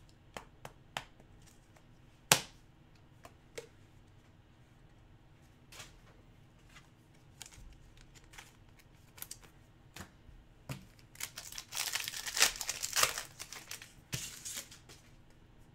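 Scattered light clicks and taps of plastic card holders being handled on a wooden tabletop, one sharper click about two seconds in. About twelve seconds in, a trading-card pack wrapper is torn open with loud crinkling, and it crinkles again a couple of seconds later.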